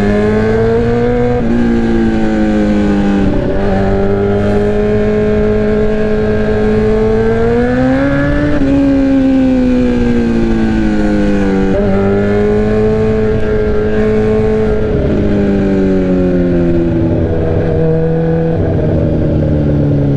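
Loud straight-piped sport bike exhaust while riding. The engine pitch climbs slowly and then drops sharply several times as the revs rise and fall.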